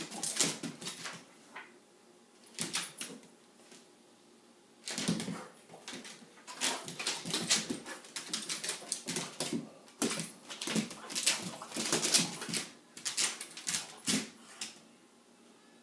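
A pug scrambling after a laser-pointer dot, its claws clicking and skittering on a hardwood floor in irregular bursts, mixed with the dog's own noises. The sound pauses briefly twice in the first five seconds, then runs almost without a break.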